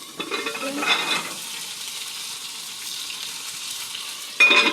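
Cicadas frying in hot grease in a pan, a steady sizzle. There are a few knocks and scrapes in the first second and a short, loud clatter near the end.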